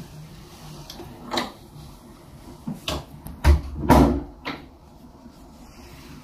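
A string of sharp knocks and thuds, about five or six in all, the two loudest close together about three and a half and four seconds in, each carrying a low thud.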